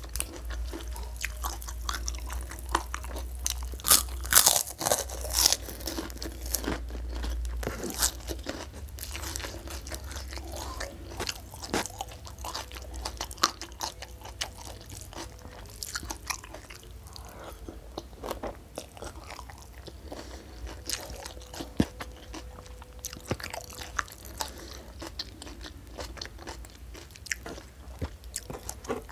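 Close-miked crunching of puffy krupuk crackers being bitten and chewed. The loudest, densest crunches come about four to six seconds in, then it settles into quieter, scattered chewing.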